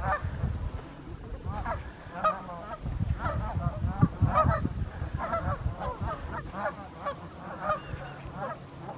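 A flock of Canada geese honking, many short calls overlapping in a steady chorus, over a low rumble that fades out about six seconds in.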